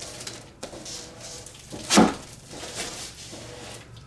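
Cardboard and foam packing being handled as a part is worked out of the box: rustling and scraping, with one sharp knock about two seconds in.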